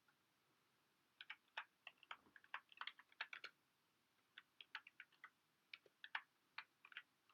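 Computer keyboard keys tapped in quick, irregular runs, with a short pause about halfway through.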